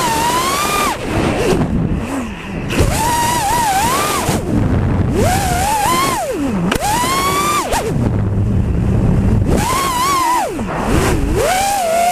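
FPV quadcopter's brushless motors whining, the pitch swooping up and down sharply with the throttle and dropping low several times, over a low rush of air noise.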